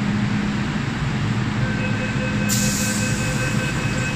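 MTR M-Train standing at the platform with a steady low hum. About two seconds in, a rapid beeping door-closing warning starts, and a hiss joins it shortly after as the train doors and platform screen doors begin to close.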